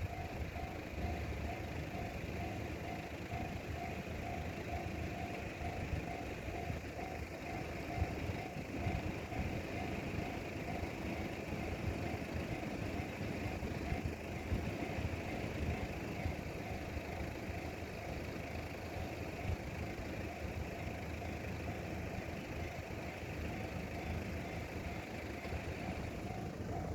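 Japanese railway level-crossing warning bell ringing in an even, repeating tone, over a steady low rumble.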